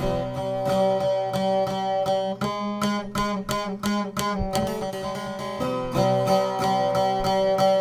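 Šargija, a long-necked Bosnian folk lute, played with quick, even strokes against ringing drone strings, with the notes changing a few times.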